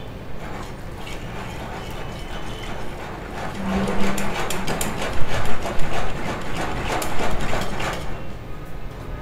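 Wire whisk beating a thin batter in a glass bowl: a fast rattle of the wires clicking against the glass. It grows louder about three and a half seconds in and stops about a second before the end.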